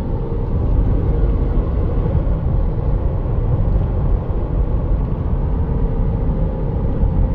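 Steady road and engine noise of a Toyota 4Runner driving at highway speed, heard from inside the cabin: a continuous low rumble with a faint steady hum.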